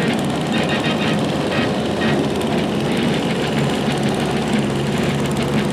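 Small garden tractor engines running together as a line of riding garden tractors drives slowly past, a steady engine noise.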